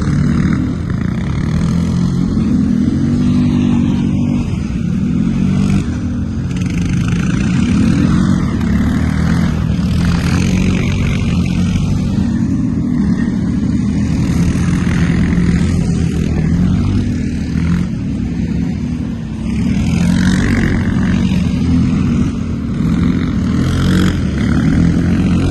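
ATV (quad bike) engine running under way for the whole stretch, its pitch and loudness rising and falling a little as the throttle changes.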